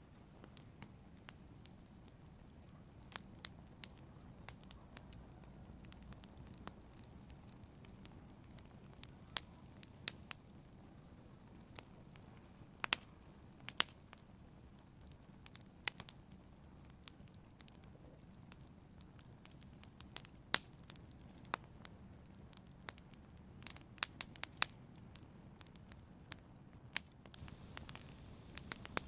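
Logs burning in a fireplace, crackling: irregular sharp snaps and pops, some in quick clusters near the end, over a low steady rumble of the fire.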